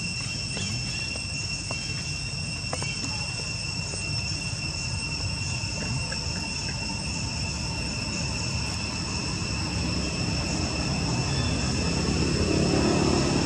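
Steady high-pitched insect shrilling, two even tones that hold without a break, over a low rumble that grows louder near the end. A few faint clicks sound in the first few seconds.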